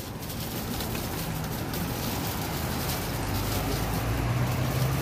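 Low rumble of a motor vehicle's engine running nearby, growing louder over the last couple of seconds, over outdoor traffic noise.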